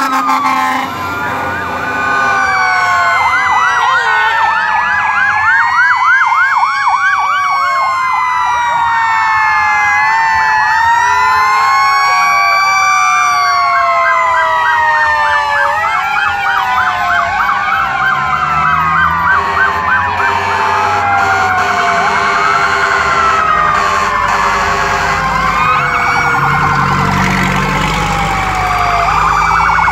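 Several fire truck sirens sounding at once and overlapping, slow rising-and-falling wails mixed with fast yelps, as the trucks drive past in a procession. The low engine rumble of a passing truck grows near the end.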